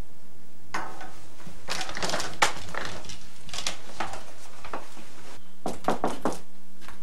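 Objects being handled at a desk: a run of irregular clicks, knocks and clatter, denser in the middle and near the end, over a low steady hum.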